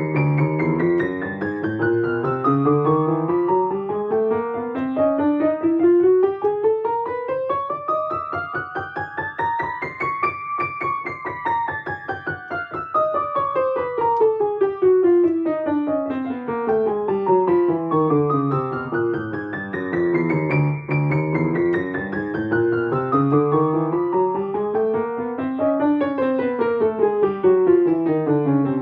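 Piano scales in contrary motion: the two hands run apart and back together over several octaves in even, steady notes, each outward or inward sweep taking about ten seconds.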